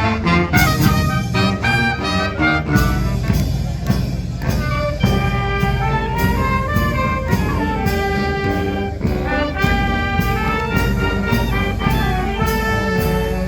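Fanfare brass band playing a march-like tune: trumpets and trombones carrying the melody over a steady drum beat.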